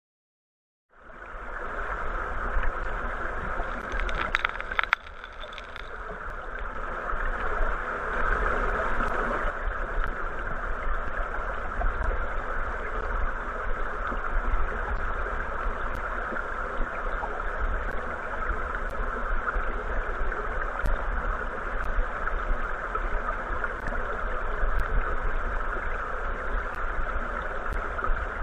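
Steady rushing of river current heard by a camera submerged on the gravel bed, with a low rumble and scattered faint ticks. It starts about a second in, with a brief cluster of clicks a few seconds later.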